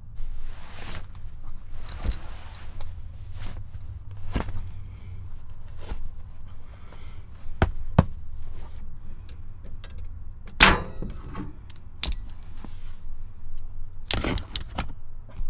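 Gear and bedding being handled in a pickup's bed under a camper shell: rustling with a string of sharp clicks and metal knocks, among them locking pliers (vice grips) being handled, the loudest knocks about halfway through and near the end. A low steady rumble runs underneath.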